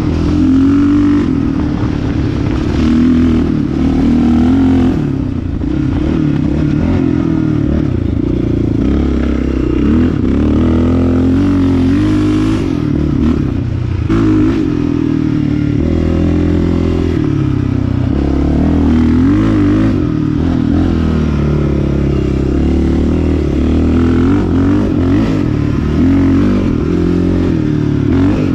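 Yamaha Raptor 660 sport quad's single-cylinder four-stroke engine running under way, its revs rising and falling again and again with the throttle.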